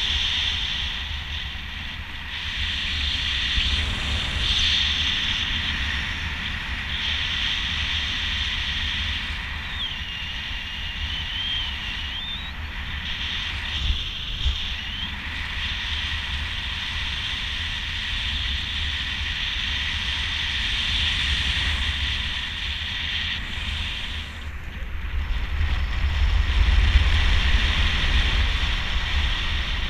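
Wind rushing over the microphone in speedwing flight: a continuous low buffeting rumble under a steady high hiss, gusting louder near the end. A faint wavering whistle comes in briefly about a third of the way through.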